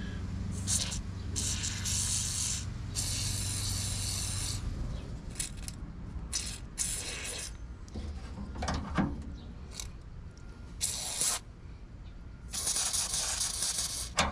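Aerosol penetrating-lubricant can spraying into a tailgate handle's pivot points in a series of hisses, some short and some over a second long.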